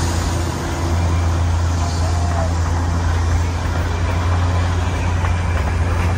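A steady low engine hum under an even haze of outdoor noise, with no change through the stretch.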